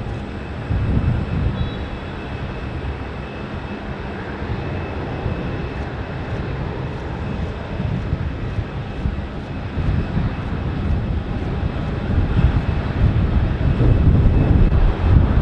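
Airbus A340-200 on landing, its four CFM56 jet engines making a steady rumble that grows louder over the last few seconds as the aircraft touches down and rolls out.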